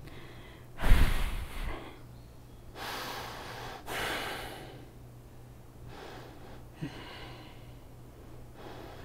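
A woman breathing hard through a core exercise: about five noisy breaths a second or two apart, the first, about a second in, the loudest and sharpest.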